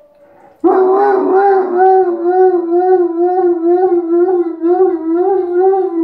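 Irish wolfhound howling: one long, wavering howl that starts about half a second in and carries on for more than five seconds. It is the dog's reaction to a civil-defence siren test, whose falling tone is faint just before the howl begins.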